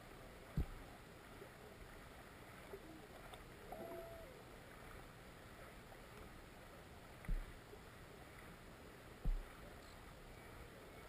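Flowing river water heard through a submerged camera: a steady muffled hiss, broken by three dull low thumps, one about half a second in and two louder ones near the end.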